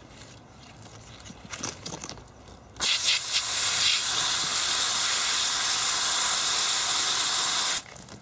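Garden hose shower-spray nozzle turned on about three seconds in, water hissing steadily onto zucchini leaves and a hand, then shut off suddenly near the end.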